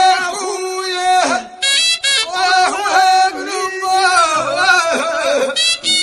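Traditional Tunisian folk song from the Jendouba region: a voice holding long notes and sliding between them, with music.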